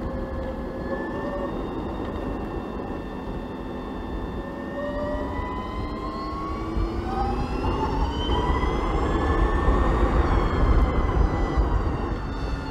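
BMW CE 04 electric scooter's motor whining under acceleration: the whine rises in pitch from about four seconds in, peaks near the ten-second mark and then falls as the scooter eases off. Wind and road rumble grow louder with the speed.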